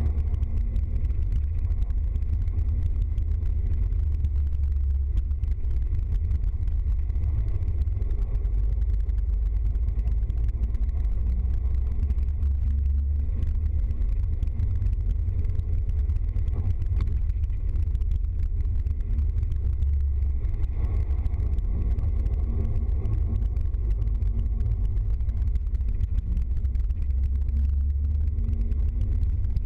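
Small van driving at a steady speed on a wet road, heard from inside the cab: a steady low drone of engine and road noise.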